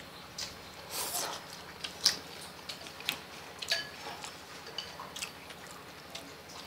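People eating noodle soup: chopsticks clicking and scraping against ceramic bowls, with chewing and slurping. The small clicks come irregularly, with one sharper knock about two seconds in.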